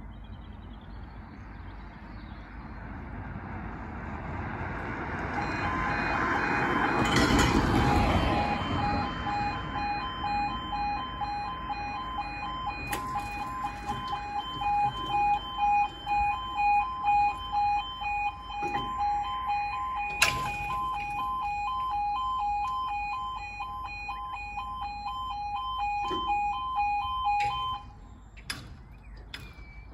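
Railway level crossing yodel alarm: a warbling two-tone warning that starts about five seconds in, as the red lights begin to flash and the barriers lower, and cuts off suddenly near the end once the barriers are down. A road vehicle passes, loudest just as the alarm begins.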